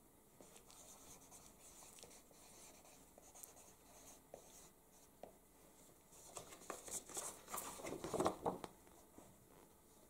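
Felt-tip marker scratching on a paper pad as answers are written, in short strokes, with louder scratching and paper rustling from about six seconds in.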